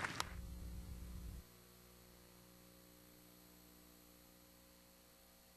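The last claps of an audience's applause in the first moment, with a low rumble that cuts off about a second and a half in; then near silence with a faint steady hum.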